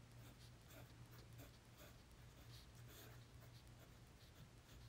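Pilot Varsity disposable fountain pen's medium stainless-steel nib writing on notepad paper: faint, irregular scratching strokes over a low steady hum.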